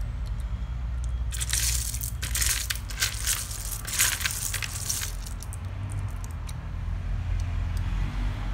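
Small cooked clam shells (pensi) clattering and rattling against each other in a plastic bowl as a hand rummages through them. The clatter runs from about a second in to about five seconds in, over a steady low hum.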